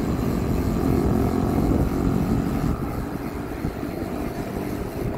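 Wind rumbling over the microphone of a camera on a moving bicycle: a loud, uneven low rumble with street traffic beneath it, easing a little about three seconds in.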